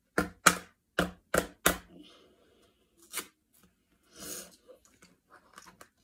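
A plastic drinking straw jabbed down into the plastic lid of a milkshake cup: five sharp knocks in under two seconds, then faint rustling.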